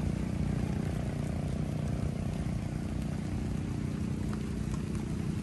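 Steady low engine drone of a distant motor, running evenly without change.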